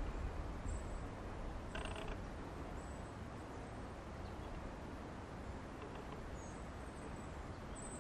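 Quiet fir-forest ambience: a low rumble of wind on the microphone, with faint high bird chirps now and then and one brief call about two seconds in.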